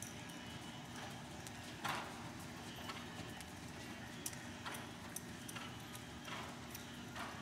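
American Paint Horse walking on soft arena dirt: irregular muffled hoofbeats, the loudest about two seconds in.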